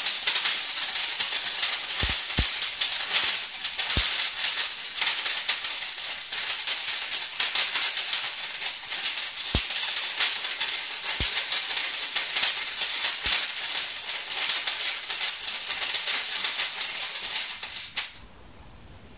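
Firework crackle torch burning: a steady hiss of spraying sparks laced with dense crackling. It cuts off sharply near the end as the torch burns out.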